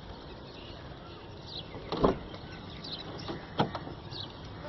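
Car door being opened: a dull clunk about two seconds in and a sharper click about a second and a half later, over a faint outdoor background.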